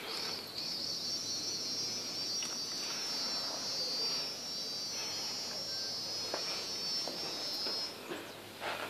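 An insect's high, steady call, held for about eight seconds and then stopping near the end, with a few faint clicks underneath.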